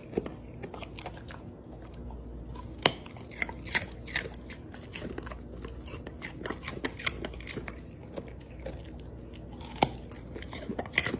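Close-up chewing of something crunchy: irregular sharp crunches and clicks, with a steady low hum underneath.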